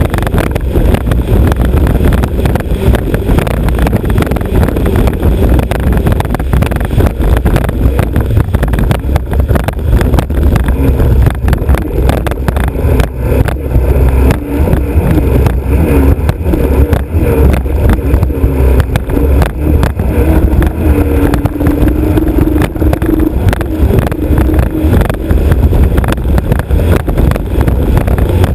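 Alfa Romeo Autodelta 2.5 V6 of a historic racer hydroplane running hard and steady at speed, heard loud from the bow with a dense rush of wind and water spray.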